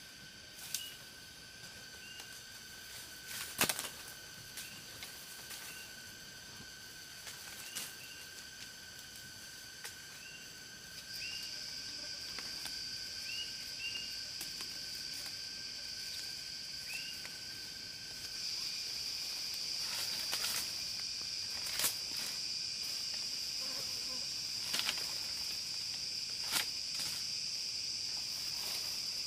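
Insects droning in steady, even high tones that step up in loudness twice, with short high chirps repeating through the first half and scattered sharp clicks.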